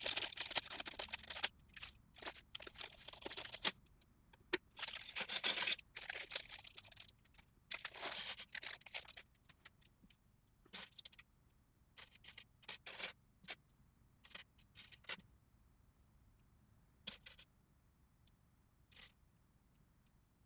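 LEGO plastic bricks being handled: bursts of rattling and rustling through about the first nine seconds, then separate sharp clicks as pieces are fitted together.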